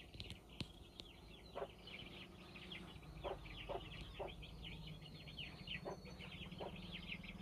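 Birds chirping faintly in the background: many quick high chirps overlapping throughout, with about six short lower clucking calls scattered through, over a low steady hum.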